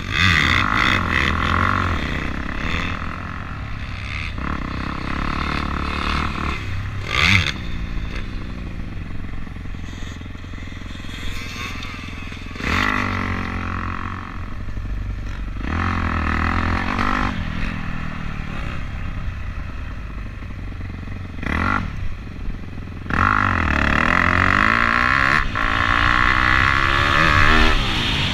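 Dirt bike engine heard from on board, ridden hard: it revs up and drops back over and over as the rider accelerates and shifts, under a steady low wind rumble. Two sharp knocks cut through, about seven seconds in and again near twenty-two seconds.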